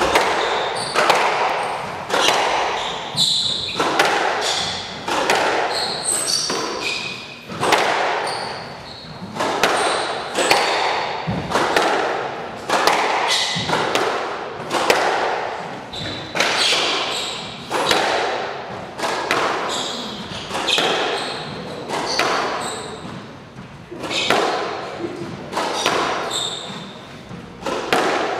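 Squash rally: the ball cracking off rackets and the court walls about once a second, each hit echoing in the court.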